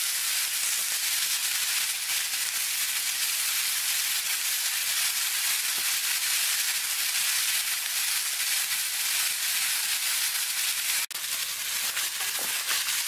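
Italian sausages, onions and green peppers frying in a cast iron skillet over a wood fire: a steady, even sizzling hiss, with a brief dropout about eleven seconds in.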